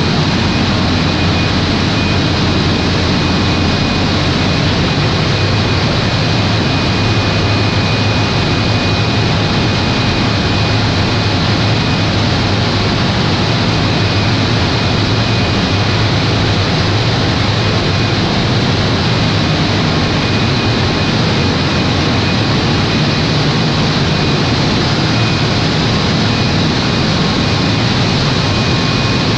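Caterpillar 900 kVA diesel generator set running steadily on a test start: a loud, even engine and cooling-fan noise with a steady low hum, unchanging throughout.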